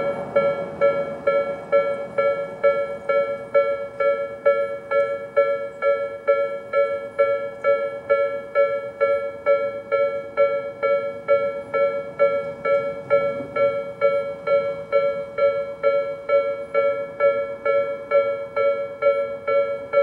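Japanese railway level-crossing warning bells, the electronic Tobu 'sound B' bell on both sides of the crossing, ringing steadily at a little over two dings a second, the signal that a train is approaching or passing.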